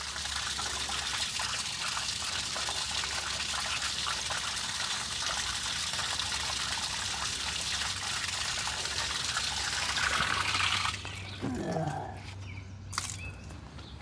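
Water draining in a steady stream out of a tractor-mounted sprayer's plastic tank, to bring the tank down from over-full. The stream stops abruptly about eleven seconds in.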